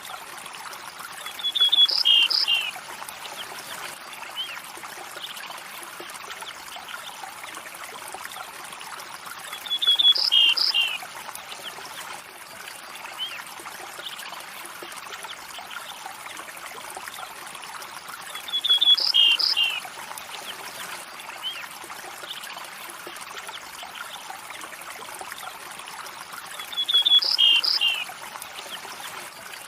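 A stream trickling steadily, with a short bird call of a few quick high notes, the loudest sound, repeating four times at even intervals of about eight and a half seconds.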